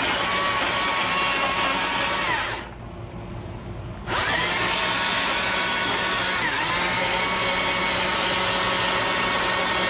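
Carving chainsaw with a narrow bar running at full speed as it cuts into the wooden carving. About two and a half seconds in the trigger is let off and it winds down, then it spins back up about four seconds in and runs on.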